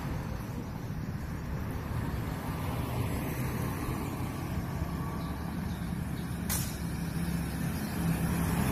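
Roadside traffic: a steady low road noise, with small motorcycles approaching and growing louder near the end.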